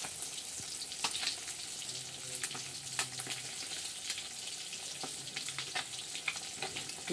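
Pieces of fish shallow-frying in hot oil in a metal kadai: a steady sizzle with frequent crackles and pops of spitting oil.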